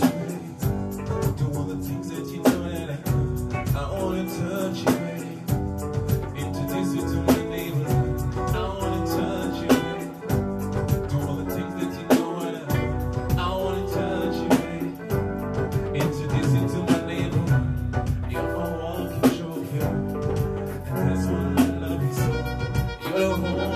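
Music with guitar, bass and a regular drum beat, with some singing.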